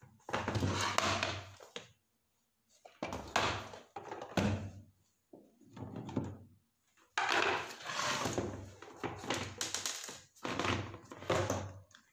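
Plastic induction cooktop case being handled on a workbench: knocks and scrapes as the unit is turned over, its case screws worked with a screwdriver and the cover lifted off, in several separate bursts.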